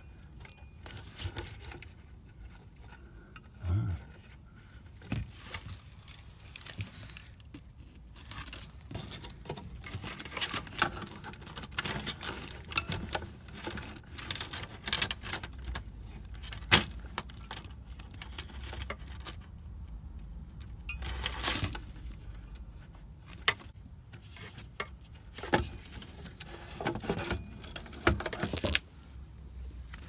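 Keys on a keyring jangling, with many small irregular metal clicks and scrapes, as a keychain tool is worked at the control module on a Secop BD35F refrigerator compressor.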